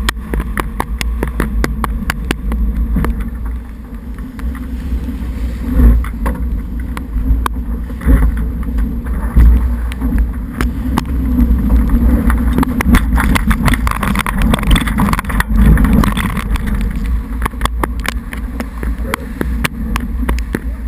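Wind buffeting the microphone of a GoPro Hero2, a steady heavy rumble, over water rushing and splashing along a J80 sailboat's heeled hull at speed. Many sharp taps and knocks run through it, and the rush swells several times.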